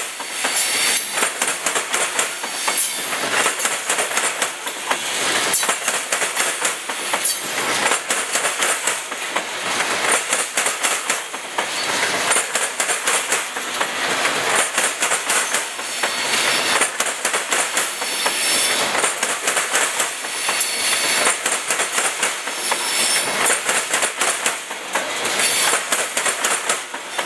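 Open-top hopper cars of a CSX freight train rolling past close by, their steel wheels clicking and clanking over the rail joints in a steady, continuous rumble that swells and dips every few seconds.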